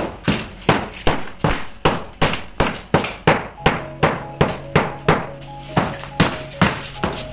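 Hammer repeatedly striking old floor tiles laid on a concrete floor, breaking them up, in a steady rhythm of about two to three blows a second. Faint background music comes in about halfway.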